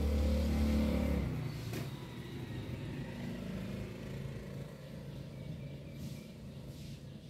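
Motor vehicle engine running close by, loudest in the first second and fading away a little over a second in, leaving a low, steady traffic rumble.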